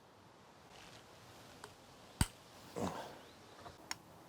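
Sparse workshop handling sounds from hand tools and engine parts: one sharp metal click about two seconds in, a brief rustle just after, and a couple of faint ticks near the end.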